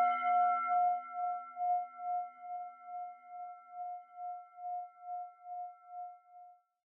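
Singing bowl ringing out after a single strike: a few steady tones that waver about twice a second as they slowly die away, fading out near the end.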